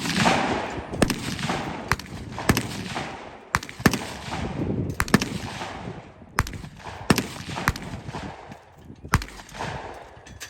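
About a dozen gunshots at irregular spacing, some nearly overlapping and differing in loudness, each followed by a short echoing decay: rifle and pistol fire on a competition firing line.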